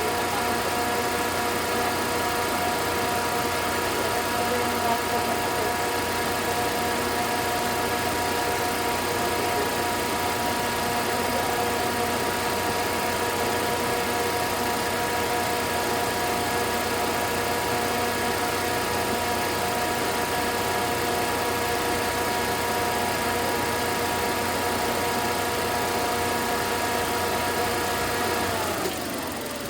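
Mitsubishi L200 pickup engine idling steadily on freshly fitted drive belts, with a steady whine and no belt squeal. Near the end the whine slides down in pitch.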